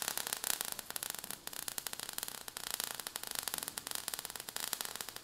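Faint, dense crackling noise, like static, with no steady tone or rhythm.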